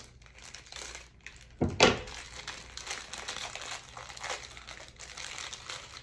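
Plastic packaging crinkling and rustling as hands open a small clear plastic bag pulled from a poly mailer, with one much louder crackle about two seconds in.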